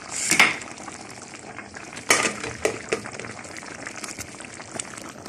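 Chicken in a cream sauce simmering in a pot, a steady bubbling hiss, with a splashing clatter in the pot at the start and again about two seconds in, followed by a few light clicks.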